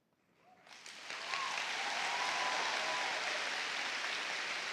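Audience applauding. The clapping swells in about half a second in and then holds steady, with a faint voice or two rising over it early on.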